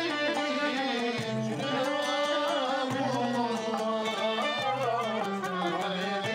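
Middle Eastern-style music: a plucked-string melody with sustained, wavering melodic lines over repeating low bass notes.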